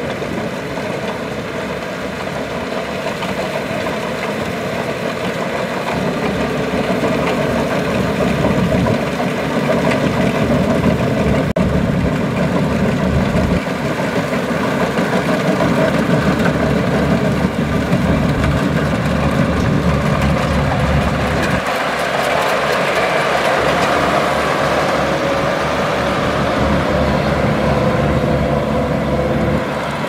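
Kubota DC-95 combine harvester's diesel engine and machinery running steadily, growing a little louder after the first few seconds, with a mid-pitched whine that drifts slightly in pitch in the second half.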